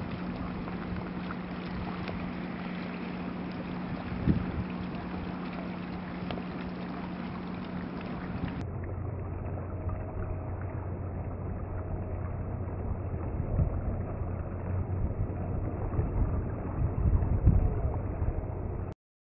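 Wind buffeting the microphone over a steady low hum of ship machinery across the water. The hum drops lower about nine seconds in.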